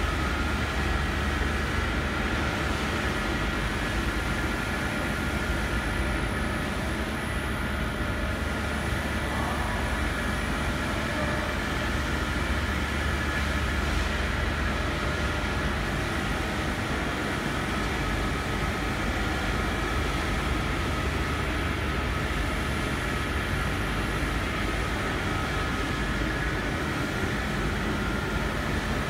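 Thin plastic sheet extrusion line running steadily: a constant deep rumble from its motors and rollers, with several steady whining tones over it.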